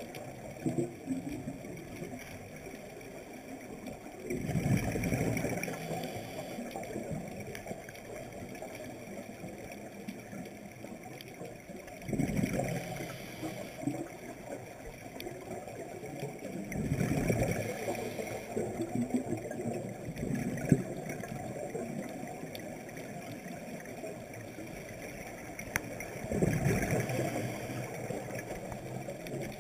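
Scuba diver's exhaled breath bubbling out of a regulator underwater, in four bursts of bubbling several seconds apart, with a steady hiss between them.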